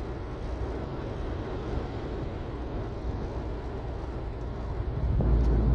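Steady road and engine noise inside a car cabin at motorway speed, with a low rumble that grows louder about five seconds in.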